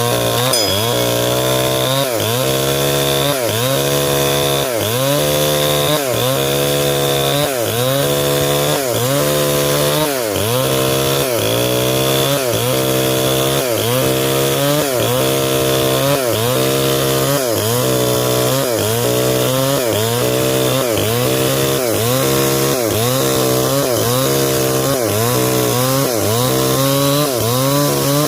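Stihl 070 two-stroke chainsaw running flat out as it rips a log lengthwise into a beam, its engine pitch dipping and recovering in a steady rhythm a little more than once a second.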